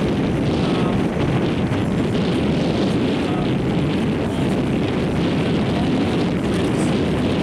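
Wind rushing over the microphone of a camera carried on a moving bicycle: a steady, loud rumbling rush.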